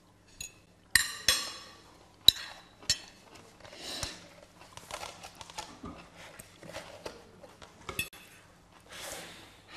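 A metal spoon clinking against a food cup and plate while someone eats: a few sharp clinks in the first three seconds and another near the end, with softer scraping and rustling between.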